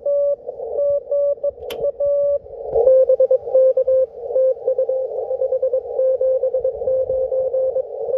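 Morse code (CW) on the 20-metre band from a Yaesu HF transceiver, heard through its narrow CW filter: a single pitched tone keyed in dots and dashes over a band of hiss. A sharp click comes at under two seconds in. From about three seconds in the keying carries on at a slightly lower pitch, a different signal.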